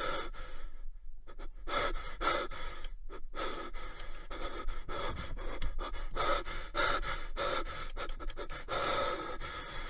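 Heavy, breathy panting close to the microphone, in quick puffs about two or three a second, pausing briefly about a second in and again around three seconds.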